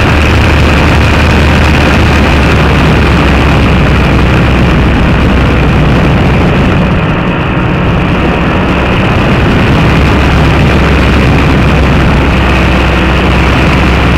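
Engine and pusher propeller of a two-seat paratrike running steadily in cruising flight. The hiss above it thins briefly about seven seconds in.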